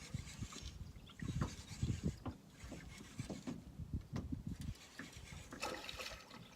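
Irregular low knocks and rubbing from rod, reel and boat handling while a hooked pike is being fought.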